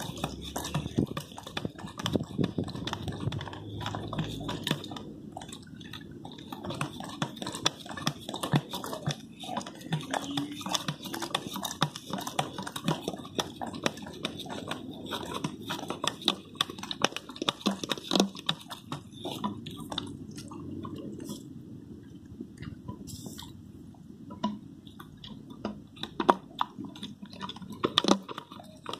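A dog licking and lapping liquid from the neck of a plastic bottle: a rapid, irregular run of wet tongue clicks and slurps, with a few louder clicks near the end.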